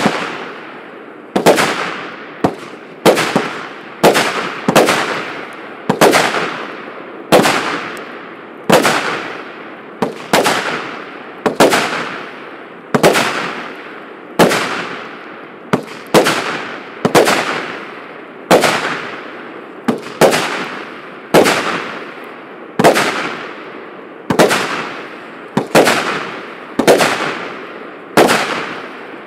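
A 148-shot, 0.8-inch firework cake firing: a steady string of sharp bangs, about one every second to second and a half, each trailing off in a fading crackling hiss.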